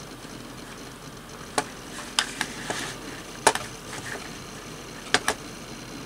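Sharp clicks from a computer mouse and keyboard, about seven of them starting about a second and a half in, the last two a quick pair, over a faint steady hum.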